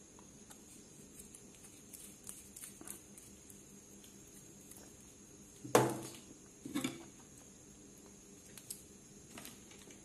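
Small clicks and taps of tools and objects handled on a workbench, with two louder knocks about a second apart around the middle, the first the loudest.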